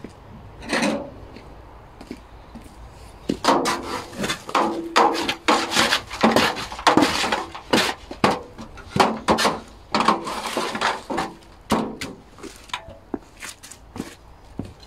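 Small metal shovel scooping and scraping wood ash from an old fire into a metal bucket: a quick run of rasping scrapes and clinks from about three and a half seconds in until about twelve seconds, with one scrape near the start.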